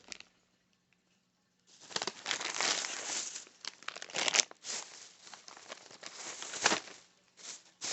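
A bag crinkling and rustling in irregular bursts as fidget toys are handled and pulled out of it; it starts after about a second and a half of quiet.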